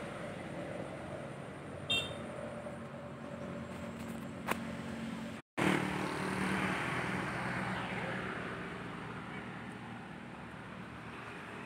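A steady low motor hum under outdoor background noise, with a short high chirp about two seconds in. The sound drops out for an instant about halfway and comes back.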